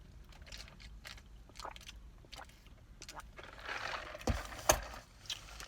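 Close-mic eating sounds of someone chewing a spicy fried chicken sandwich: soft wet smacks and mouth clicks, with one sharp click about three quarters of the way through as the loudest sound.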